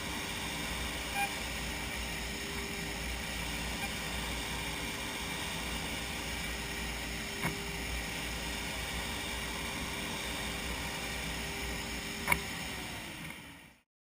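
Format4 CNC machining centre running steadily, a constant machine noise with a steady hum-like tone, two brief clicks, then fading out near the end.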